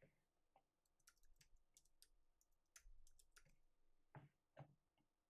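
Faint computer keyboard typing: scattered short keystroke clicks, with two slightly louder clicks near the end.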